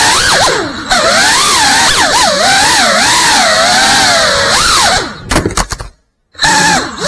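Brushless motors and propellers of a GEPRC Cinelog 35 cinewhoop FPV drone whining, the pitch swinging up and down rapidly with the throttle during fast indoor flying. About six seconds in the sound falls away to silence for a moment, then the motors spin back up.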